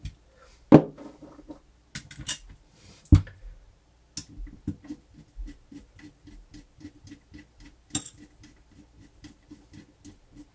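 A slotted screwdriver and metal motor parts knock and scrape as screws are driven into the motor housing, with a few sharp knocks in the first few seconds. A steady light ticking follows, about four ticks a second.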